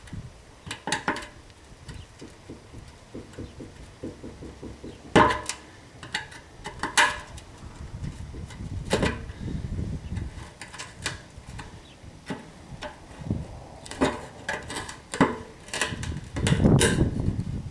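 Flat-blade screwdriver knocking and prying at a seized fuel-pump lock ring on a metal fuel tank: irregular sharp metallic clicks and knocks, a dozen or so, with a low rumble near the end.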